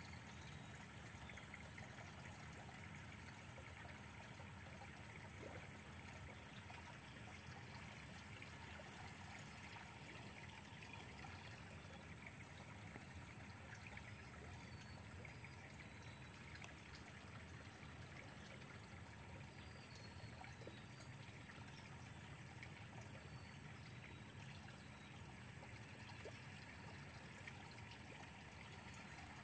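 Near silence: a faint, steady background hiss with no distinct event.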